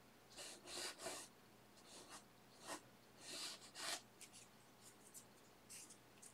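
Oil-paint brush strokes scrubbing paint onto textured canvas: a quiet run of irregular, hissy swishes, longer ones at first, then shorter dabs toward the end.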